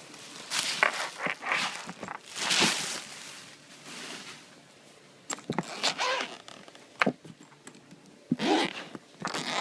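Zipper on a Planet Eclipse Ego11 paintball marker case being pulled open in a few rasping strokes, followed by sharp clicks and handling noise as the case is opened.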